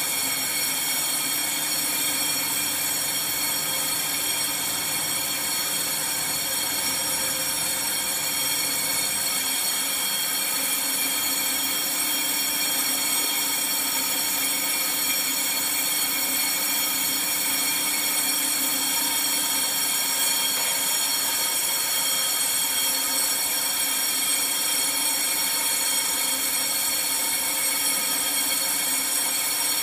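Steady high-pitched machine whine made of many held tones, unchanging throughout; a low hum underneath drops away about nine seconds in.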